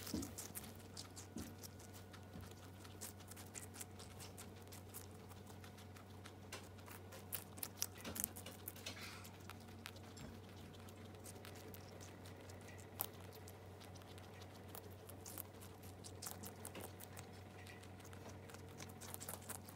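Two guinea pigs chewing watermelon: faint, irregular quick clicks and crunches of teeth on the rind, over a steady low hum.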